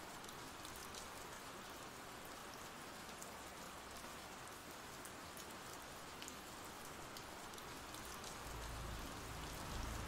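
Faint, steady ambient rain, a soft even patter. Near the end a low rumble swells in under it.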